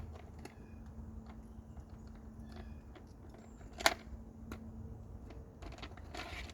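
Scattered light clicks and knocks of tools being handled, with one sharper knock about four seconds in, over a faint steady hum; the drill is not running.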